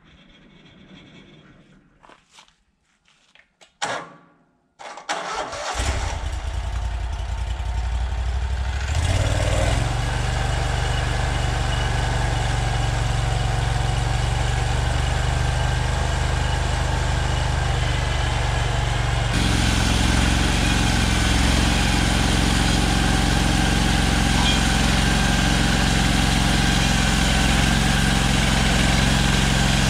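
Hud-Son Oscar 336 sawmill's gasoline engine being started, catching about five seconds in and then running steadily. It speeds up around nine seconds, and the sound steps up again near twenty seconds.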